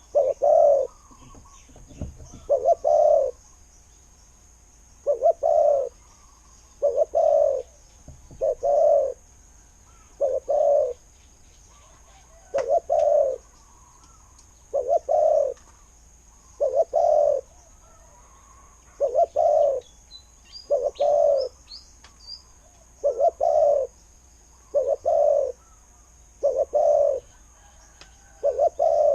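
Spotted dove cooing, repeating its low coo phrase about every two seconds, the calls often in close pairs. A few faint high chirps of another small bird come about two-thirds of the way through.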